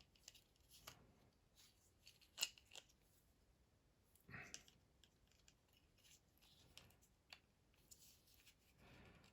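Faint clicks and light scrapes of plastic key fob case parts being handled and fitted together, with a sharper click about two seconds in and short scraping rustles about four seconds in and near the end.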